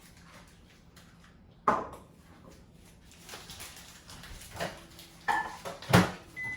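Kitchen handling clatter: a sharp knock, then a few more knocks and clicks of dishes and utensils being set down, with a short high beep near the end.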